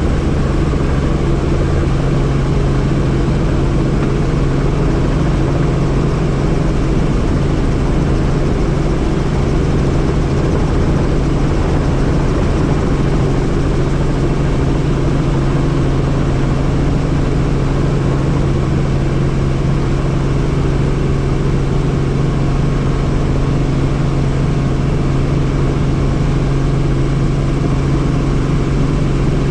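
Helicopter running, its rotor and engine making a loud, steady drone with a strong low hum and a rushing noise above it.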